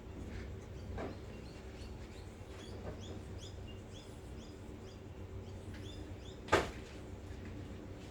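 A bird chirping over and over in short, high calls, with one sharp knock about six and a half seconds in, over a faint steady hum.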